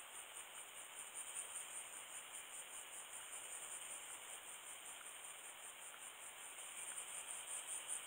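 Insects chirring: a faint, steady high trill that pulses rapidly, over a soft hiss.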